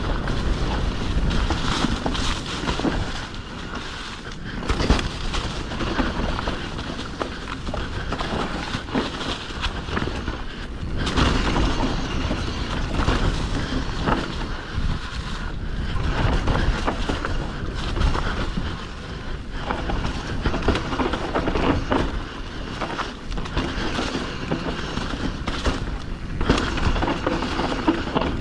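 A mountain bike riding down a rough trail: a steady rumble of tyres over dirt and rocks, broken by frequent knocks and rattles from the bike.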